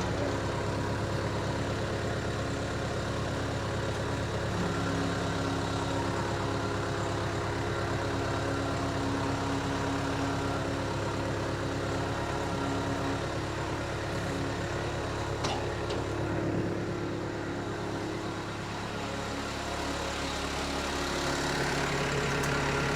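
1999 Case 430 skid steer's diesel engine running steadily just after starting, its note shifting about two-thirds of the way through and again near the end.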